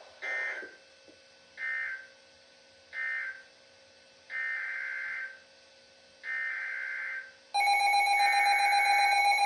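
NOAA Weather Radio SAME digital data bursts, buzzy warbling chirps: three short ones about a second and a half apart, then two longer ones, marking the end of one alert message and the header of the next alert. About seven and a half seconds in, a loud, steady electronic alarm tone from the weather radio starts and keeps sounding.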